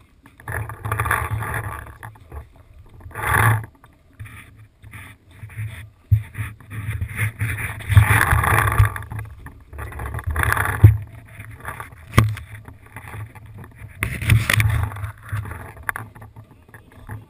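Camera handling noise: irregular bursts of rubbing and rustling against the microphone of a body-worn action camera, with a single sharp click past the middle.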